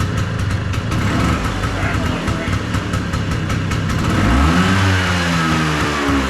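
Vespa P200E's 200 cc two-stroke single-cylinder engine idling, then revved up about four seconds in, held briefly and eased back down near the end.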